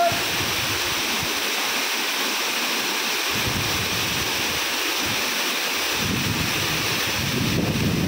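A waterfall's steady rush of falling water, with a low rumble coming and going.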